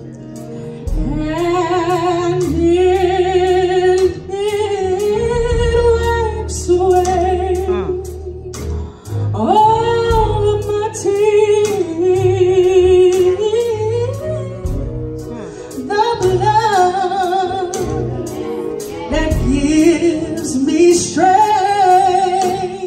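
A woman sings a gospel worship song with heavy vibrato and melismatic runs, holding long wavering notes over a low, sustained instrumental accompaniment.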